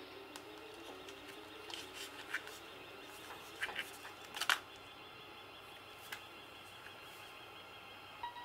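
Handling of an open Blu-ray steelbook as its printed insert is lifted out: faint rustles and a few sharp clicks of the sheet and plastic disc tray, the loudest about four and a half seconds in.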